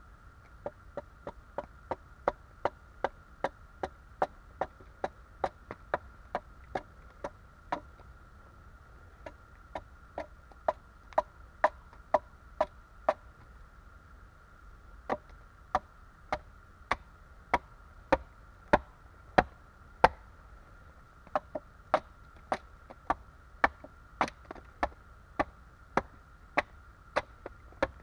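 Axe hewing a split wooden board: sharp chopping strikes about one and a half to two a second, twice pausing briefly before resuming.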